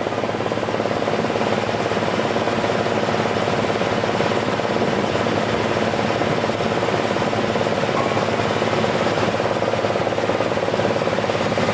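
ŻEFAM DVBA wood chipper-shredder, driven by an electric motor, running steadily at speed just after start-up: an even mechanical hum with a held tone.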